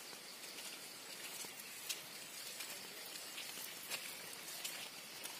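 Light rain pattering outdoors: a steady faint hiss with scattered soft ticks.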